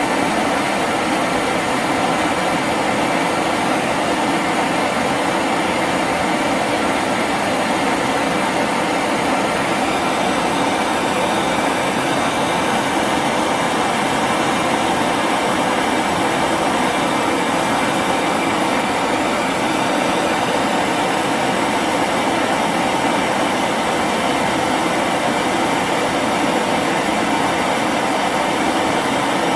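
Bullfinch LPG torch burning steadily: an even, loud rushing noise of the flame, unchanged throughout, as it heats the steel to melt manganese bronze rod into the finger's drilled cavity.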